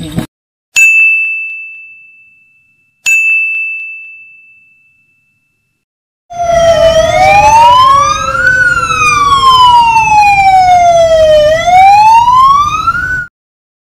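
Two bright ding sound effects about two seconds apart, each ringing out and fading. Then, after a pause, an ambulance siren sound effect wails slowly up and down for about seven seconds and cuts off abruptly.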